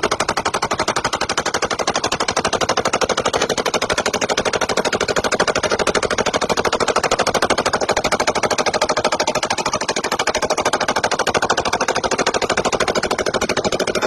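Sustained automatic gunfire: one long unbroken burst of rapid, evenly spaced shots, all at the same loudness.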